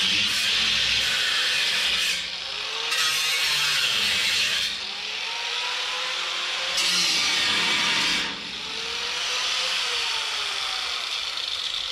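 Power tool cutting through rusted bolts in steel angle iron. It makes a loud hissing noise that eases off and picks up again a few times, with a faint pitch sliding down and back up as the cut loads it.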